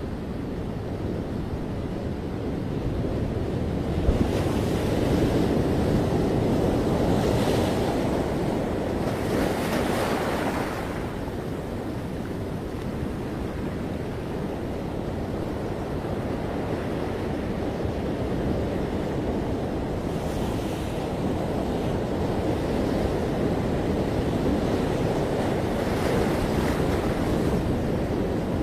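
Ocean surf on a beach: a continuous rushing wash that swells and eases, loudest from about four to eleven seconds in, with the hiss of waves breaking several times.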